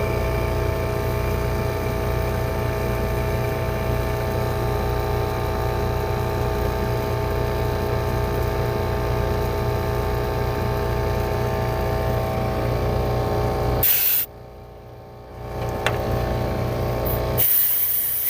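Rheem heat pump outdoor unit running in cooling: a steady hum from the compressor and condenser fan with several steady tones. About fourteen seconds in there is a short burst of hiss. The sound then drops away for a moment and comes back, with another loud hiss near the end.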